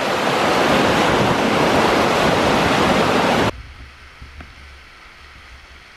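Loud, steady rush of whitewater rapids on a rocky river. About three and a half seconds in it cuts off abruptly to a much fainter, distant rush of water.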